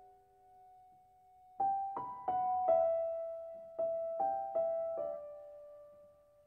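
Slow, gentle solo piano music: a held note dies away, then about a second and a half in, a slow melody of single struck notes starts again.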